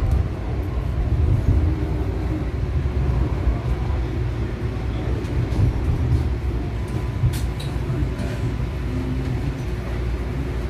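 Baltimore light-rail car running along street track, heard from inside the passenger cabin: a steady low rumble from the wheels and motors, with occasional light clicks and rattles and one sharp click about seven seconds in.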